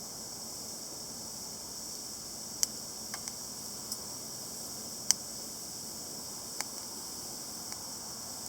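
Wood fire burning in a charcoal-starter chimney, crackling with sharp pops at irregular intervals over a steady high hiss; two pops stand out as louder.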